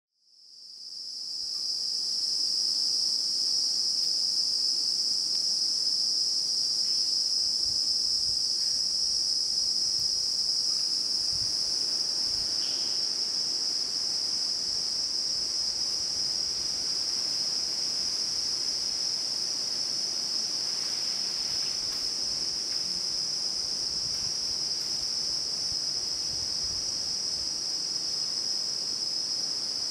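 A dense chorus of buzzing insects in a mangrove swamp: one continuous, steady high-pitched buzz that fades in over the first couple of seconds.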